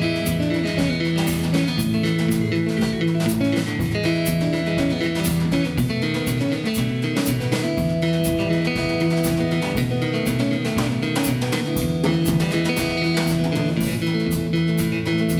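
Martin 00-28 steel-string acoustic guitar fingerpicked in a bluesy instrumental, with a drum kit keeping a steady beat of quick, crisp ticks.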